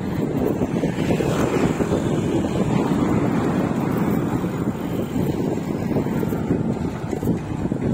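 Wind buffeting the microphone of a bicycle rider moving at speed: a steady low rumble.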